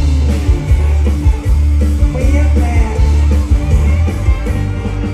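Live band music with heavy bass and a steady drum beat, and a singer's voice over it.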